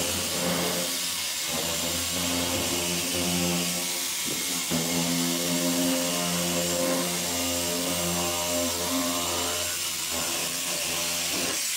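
Milwaukee electric metal shear cutting along a steel standing-seam roof panel, its motor running with a steady, even whine as it slices the sheet. The cut stops just before the end.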